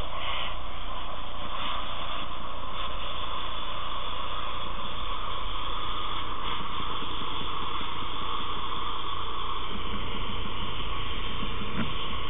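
Fire hose handline spraying water, a steady rushing hiss over a low, even rumble.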